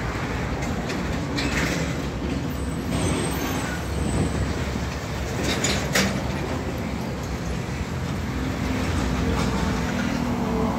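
Diesel engine of a heavy Hino truck running as it drives slowly toward the listener, with a steady low rumble of road traffic; the engine hum grows clearer toward the end.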